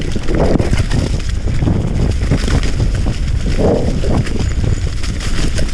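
Mountain bike rolling fast over a leaf-covered dirt trail: a steady noisy rumble of tires on leaves and dirt, with scattered clicks and rattles from the bike.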